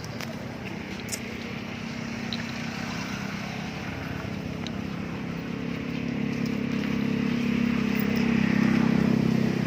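A motor vehicle engine running steadily nearby and getting louder over the last few seconds, as if approaching.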